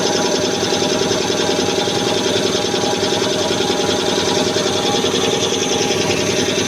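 High-pressure six-cylinder reciprocating air compressor running steadily, its pistons making a fast, even chatter.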